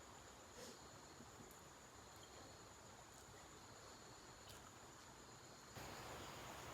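Near silence: faint room hiss with a thin steady high whine and a few faint clicks. The hiss grows a little louder near the end.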